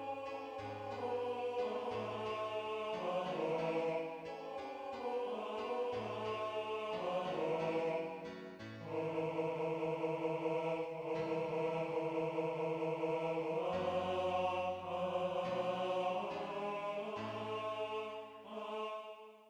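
Notation-software playback of a score: a synthesized voice sound carries the vocal melody note by note over sustained piano chords.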